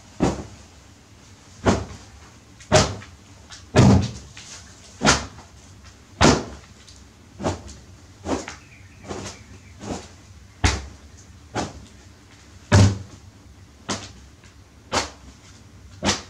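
A small ball being bounced and caught again and again, each bounce a sharp knock, roughly once a second.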